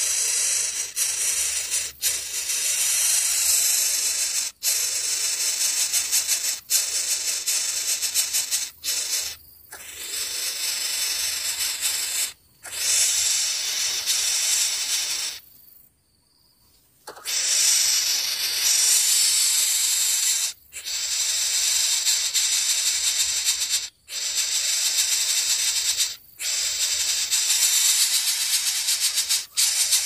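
Coucal nestlings hissing in harsh stretches of a few seconds each, broken by short, sudden pauses; this is the defensive hiss coucal chicks give when disturbed at the nest.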